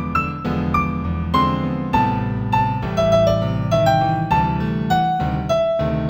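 Piano music: a slow melody of single notes, about two a second, over sustained low chords.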